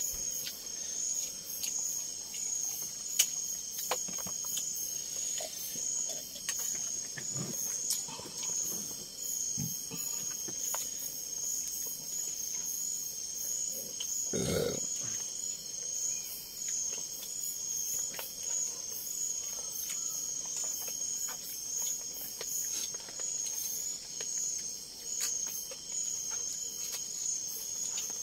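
Insects giving a steady, high-pitched trill with a slight pulse. Scattered small clicks and one brief louder noise about halfway through sound over it.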